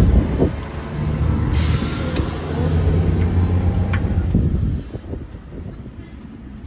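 A heavy vehicle's engine running close by, with a short hiss of air about one and a half seconds in; the engine sound drops away about five seconds in.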